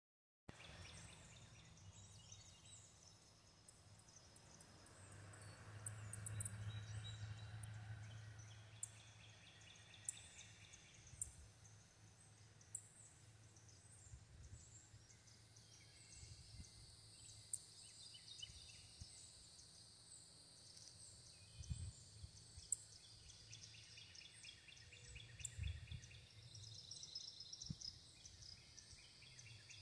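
Faint woodland ambience: birds chirping and calling on and off over a steady high insect hum. A low rumble swells and fades a few seconds in.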